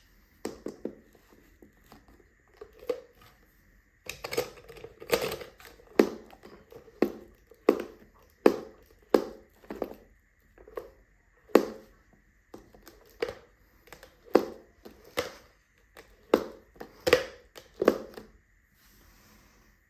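An irregular series of sharp clacks and knocks from hard objects being handled and set down, about one or two a second with short pauses, over a faint steady high-pitched tone.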